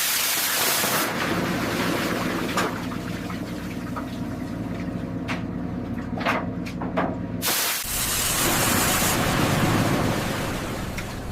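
A loud spraying hiss for about a second, then a steady low machinery hum with a few sharp clicks, then another spraying hiss for about a second and a half.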